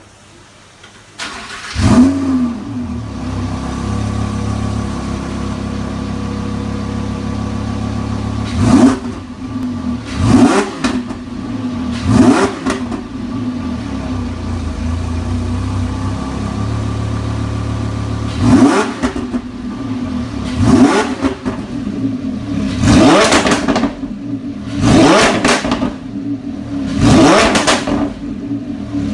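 Lamborghini Huracán LP610-4's 5.2-litre V10 through a Fi valvetronic catback exhaust, cold-started about a second in with a loud flare, then settling into a steady fast idle. It is blipped three times in quick succession around the middle, then given five more sharp revs toward the end.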